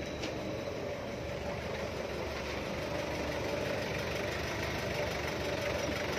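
Toyota forklift engine running at low revs, growing slowly louder as the forklift drives closer.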